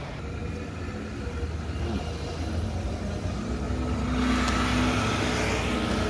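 Engine of a Mack front-loader garbage truck running as it drives along the road: a low rumble that grows louder about four seconds in, when a steady hum and a hiss join it.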